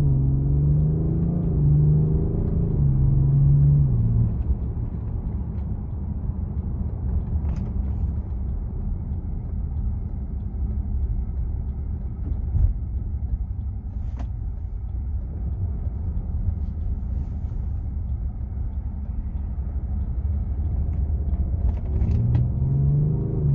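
BMW M550d's triple-turbo 3.0-litre inline-six diesel driving: the engine note climbs and steps in pitch for the first four seconds, settles into a steady low rumble for most of the stretch, then climbs again near the end.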